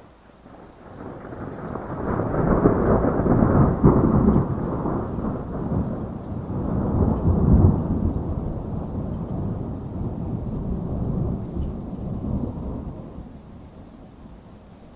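A long peal of rolling thunder over steady rain. It builds over the first couple of seconds, rumbles loudest with a few surges for several seconds, then dies away slowly near the end.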